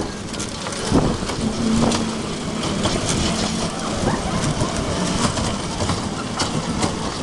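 Children's ride-on train rolling around its track, the small cars rattling and clicking as they go, with a brief steady hum about one and a half seconds in.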